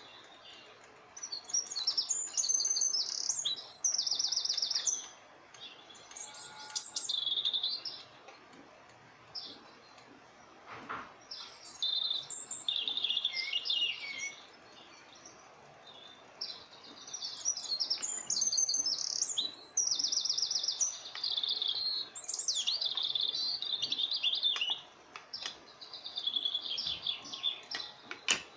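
Small birds chirping and twittering in rapid high trills, in bouts of a second or two with short pauses between.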